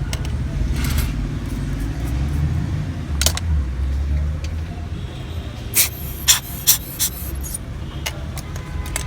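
Steady low rumble of road traffic, with a handful of sharp, small metallic clicks, several of them close together about six to seven seconds in.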